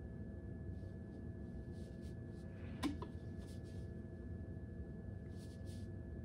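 Faint, brief rustles of long hair being handled as fingers pull loops of a braid loose, over quiet room tone with a steady hum. One sharp click just under three seconds in is the loudest sound.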